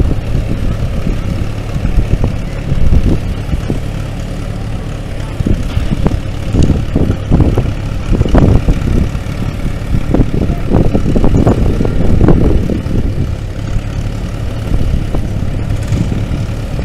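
Vintage farm tractor engine idling steadily, with irregular low surges and bumps coming and going over it.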